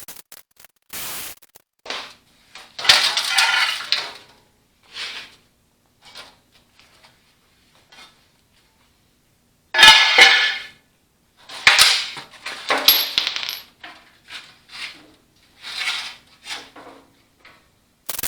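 Loose metal pieces and hand tools clattering: a string of short clanks and clinks, loudest about ten seconds in and again around twelve to thirteen seconds.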